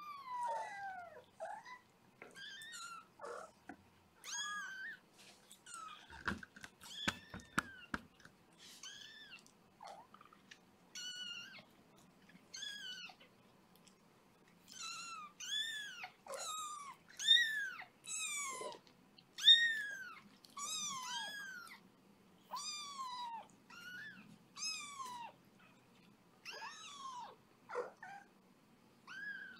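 Young kitten crying: a long run of high-pitched mews, each rising and then falling in pitch, coming faster and louder in the second half. The fosterer takes the crying for distress at being unable to poop. A few soft knocks sound about six to eight seconds in.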